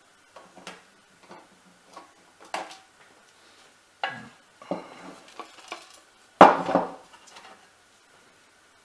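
Irregular clicks and clatters of a screwdriver and small screws being handled while screws are put back into a charge controller, the loudest clatter about six and a half seconds in.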